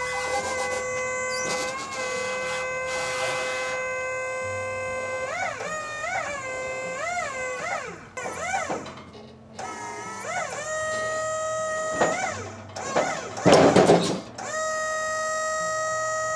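Background instrumental music: held notes that bend up and down in pitch, with a short loud noisy swell near the end.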